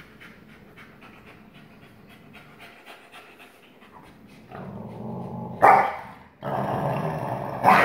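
Wolfdog panting quickly, about five breaths a second. Partway through, low growling starts, broken by a sudden loud snarl, then grows into louder sustained growling: play growling between a wolfdog father and son.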